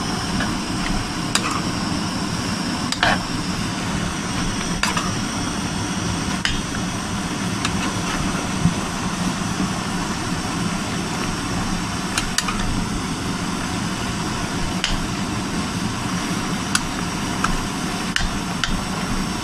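Chicken and vegetable stir fry sizzling steadily in a pan over a low, even hum, with a metal utensil clicking against the pan at irregular moments every second or two as it is stirred.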